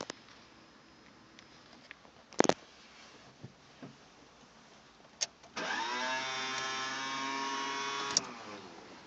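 A car making an odd noise on start-up. A few clicks come first, then a loud whine that dips in pitch at its onset and holds steady for about two and a half seconds before cutting off with a click.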